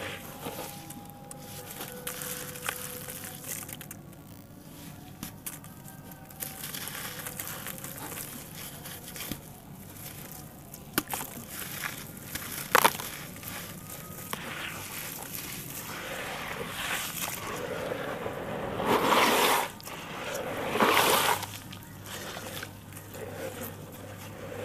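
Hands crumbling and squeezing wet red dirt lumps in a bowl of muddy water: gritty crumbling, squelching and sloshing. There are a couple of sharp clicks about halfway through and two louder sloshing bursts a few seconds before the end.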